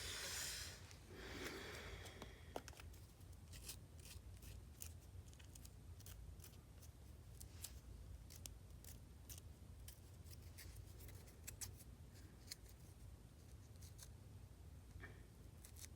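Faint, irregular small clicks and ticks of hands working nail polish strips onto fingernails, over a low steady hum. A brief rustle comes right at the start.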